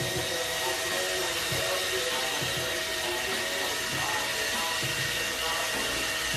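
A robot vacuum cleaner running: a steady whirring hiss with a thin, high motor whine.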